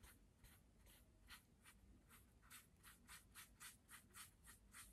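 Faint, short strokes of a paintbrush on the painting's surface as paint is put on, about three a second, coming a little quicker after the first second or so.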